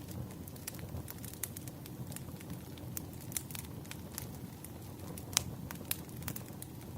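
Wood fire crackling: scattered pops and snaps over a low, steady rumble of burning logs, with one sharper pop about five seconds in.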